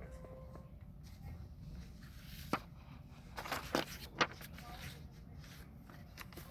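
A few short, sharp clicks and knocks of small objects being handled: one about two and a half seconds in, a quick cluster a second later, and one more just after four seconds, over a faint low hum.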